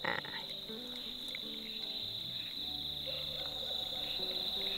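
Insects trilling in a steady, high-pitched chorus, with soft background music of held notes underneath.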